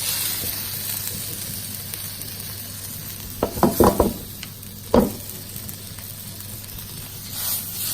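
Tuna steak frying in oil in a pan over a low flame: a steady sizzle, broken by a few short, louder sounds about three and a half and five seconds in.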